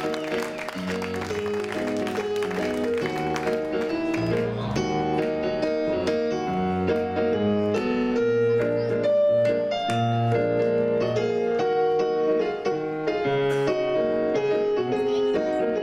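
Piano playing an instrumental passage of chords and melody, with scattered audience clapping during the first few seconds.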